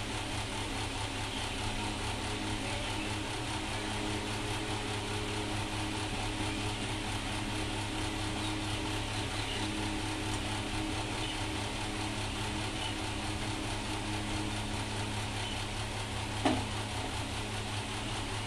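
Oil sizzling steadily as fritters deep-fry in a kadai, over a steady electric hum. One sharp knock near the end.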